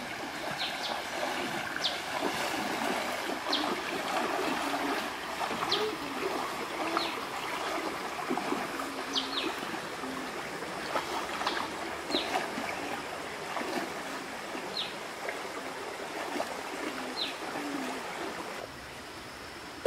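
Shallow rocky stream running, with splashing as people wade through the water. Short high chirps repeat every second or two, and the sound drops quieter just before the end.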